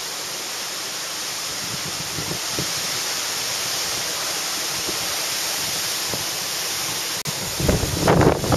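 Steady hiss of hurricane wind and water, with a brief dropout about seven seconds in, then gusts buffeting the microphone near the end.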